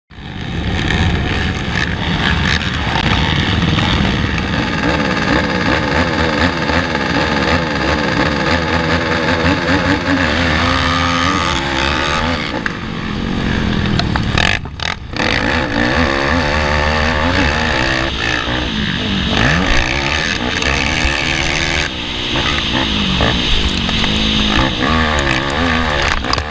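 Race ATV engines revving hard, their pitch climbing and falling again and again through the gears on a dirt track. They are heard from a camera riding on one of the quads, with another quad running just ahead. The sound drops out briefly about halfway through.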